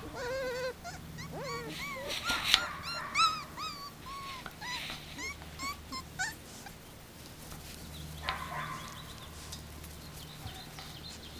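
Month-old Samoyed puppies whining and yipping in a rapid run of short, high squeaks that thin out after about six seconds. A couple of sharp clicks come a few seconds in.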